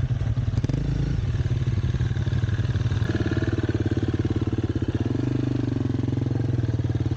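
Single-cylinder trail motorcycle engine running steadily while riding, its note changing about three seconds in.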